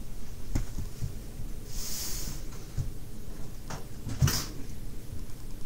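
Handling noises as a canvas-stretched diamond painting is carried in and stood against the wall: a few light knocks and thumps with two short rustles, the loudest knock and rustle about four seconds in.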